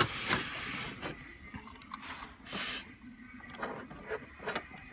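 Handling noise from a loosened plastic water pump and its wires being moved and rubbed: a sharp click at the start, two spells of scraping, then several short clicks near the end.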